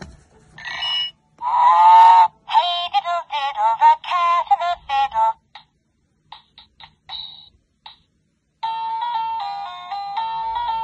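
VTech Baby Nursery Rhymes Book toy sounding through its small speaker: a short electronic chime, then a recorded voice for a few seconds, a few short beeps, and from about two-thirds of the way in a steady electronic melody.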